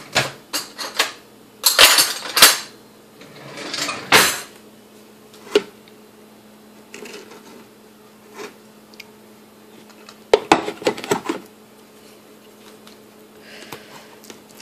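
Hard plastic slow-feeder dog bowls being handled: short bursts of plastic clicks, clacks and knocks as the parts are taken apart and set down.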